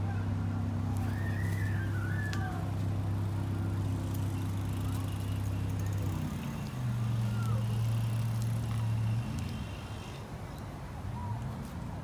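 A motor vehicle's engine running steadily, its hum stepping up in pitch about six seconds in and dropping back about three seconds later. A few short bird chirps sound over it, about a second in and again later.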